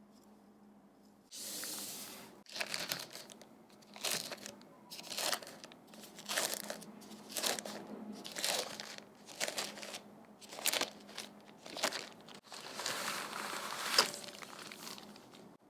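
Keyboard packaging being handled, crinkling and crackling in repeated rustles about once a second, starting about a second in.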